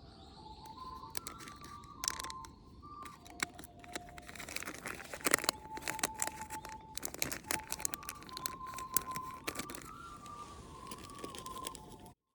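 Dense crackling and snapping from a tiny wood campfire, under a slow alto recorder melody of held notes. The crackles are thickest midway, and all sound cuts off suddenly just before the end.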